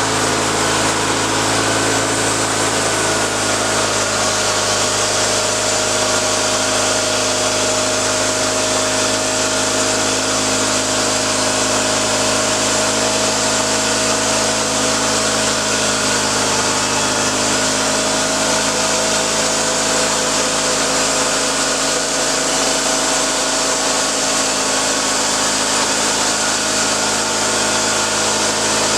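Small petrol engine running steadily at high speed under load while a saw cuts wood, its pitch shifting only slightly.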